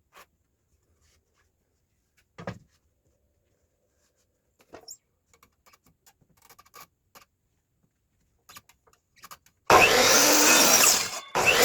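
Faint taps and knocks of wooden boards and tools being handled, with one louder knock a couple of seconds in. Near the end an electric saw starts and runs loudly through a cut in a wooden fence board, stopping briefly and starting again.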